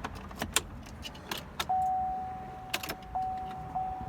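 Keys jangle and click in the ignition of a 2018 GMC Sierra. About halfway through, a steady electronic warning chime starts and re-strikes about every 0.6 seconds, the truck's reminder that the key is in the ignition.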